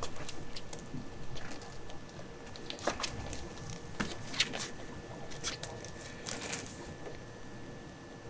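Soft, irregular rustles and light clicks as a newborn kitten is handled by a rubber-gloved hand on a disposable absorbent pad, with a few sharper ticks about three and four seconds in.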